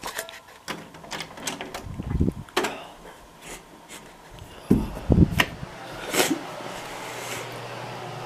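Scattered clicks, rustles and low thumps of things being handled and moved. A steady low hum sets in about six seconds in.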